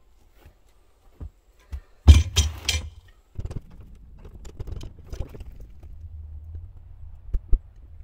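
Metal tools clanking and rattling against a hydraulic cylinder while its gland is being worked loose: a quick burst of loud clatters about two seconds in, then scattered clicks and two sharp knocks near the end over a low steady hum.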